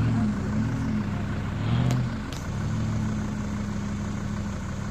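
Off-road 4x4 engine running steadily at low revs while crawling over rock, with two sharp clicks about two seconds in.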